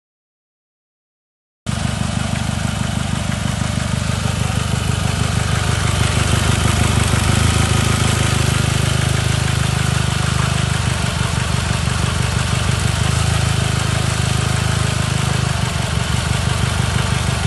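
After about a second and a half of silence, a Chevrolet Cobalt's engine starts sounding loudly at idle and runs steadily with a low pulsing rhythm.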